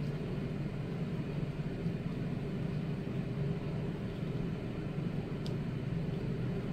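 A steady low background hum, with one faint tick about five and a half seconds in.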